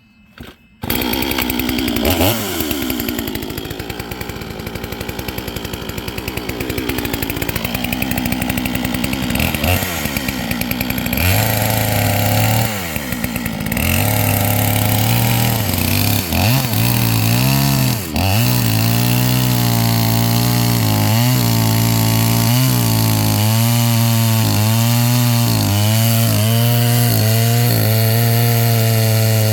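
A new two-stroke chainsaw, warmed up but not yet broken in, starts up about a second in and cuts gently into bald cypress. Its engine pitch rises and falls through the first half. In the second half it runs steadily, wavering about once a second.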